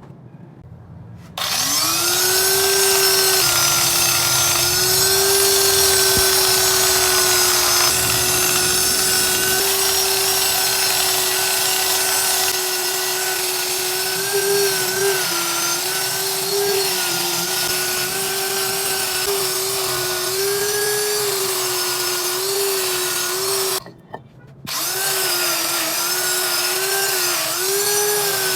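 Electric power tool spinning up a second or so in and running with a steady whine and a hiss over it. Its pitch dips again and again in the second half, and it cuts out briefly near the end before starting up again.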